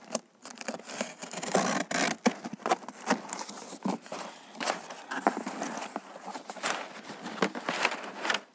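A cardboard shipping box being opened and the crumpled packing paper inside rustled and pulled about: a continuous run of irregular crinkles, scrapes and sharp snaps.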